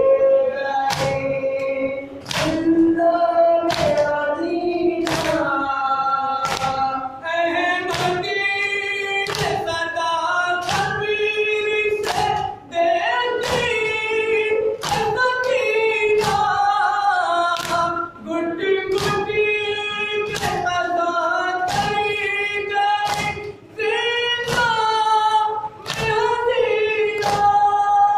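A nauha (Shia lament for Muharram) sung by men's voices over a microphone in a small, echoing hall. Steady, even chest-beating (matam) keeps time, a sharp slap a little more than once a second.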